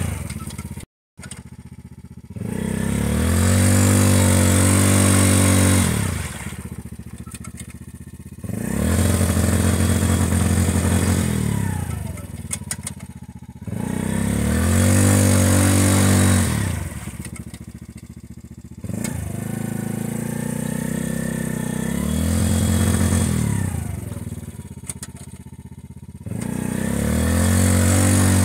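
Yamaha Grizzly 90 youth ATV's small single-cylinder four-stroke engine revved hard about five times under load in mud, each rev rising in pitch, holding a few seconds and falling back to idle.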